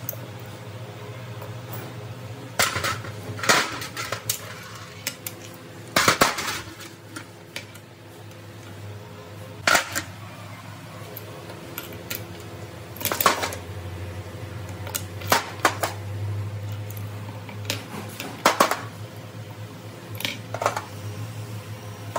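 Irregular metal clinks and knocks as steel parts of a hydraulic pump are handled and set down, a dozen or so spread unevenly, over a steady low hum.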